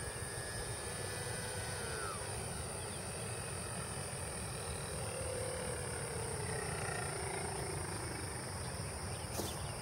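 Electric motor and propeller of a scratch-built FPV plane in flight: a faint whine that falls in pitch as the plane passes, and again as it comes down to land, then dies away.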